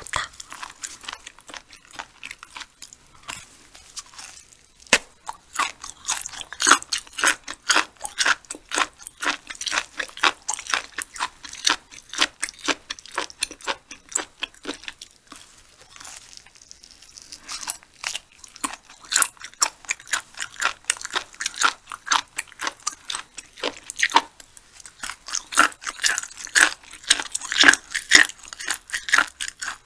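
A person chewing food close to the microphone, with a dense run of crisp, wet mouth clicks and smacks; the chewing thins out for a few seconds about halfway through, then picks up again.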